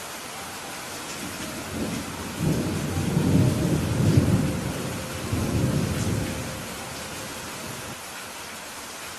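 Steady rain falling, with a roll of thunder that builds about two seconds in, rumbles low for several seconds in two swells, and dies away.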